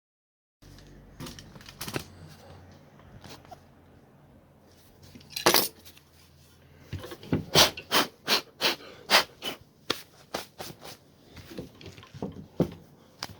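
Hard plastic clicks and knocks from handling a large angle grinder's switch and housing parts. A few scattered clicks come first, then a run of sharp clicks at about two a second in the second half.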